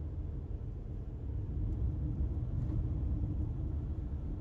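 Car driving along a rural road: a steady low rumble of tyres and engine heard from inside the cabin.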